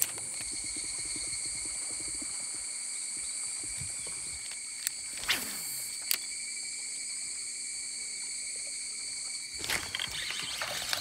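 Steady, high-pitched insect chorus of several even tones sounding together, which breaks off about ten seconds in. A single brief whoosh comes a little past halfway.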